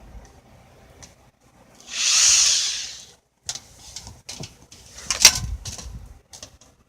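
Power drill taking screws out of a box fan: a brief high whirr of the drill running about two seconds in, then clicks and knocks of the drill and metal parts, with one sharp knock a little after five seconds.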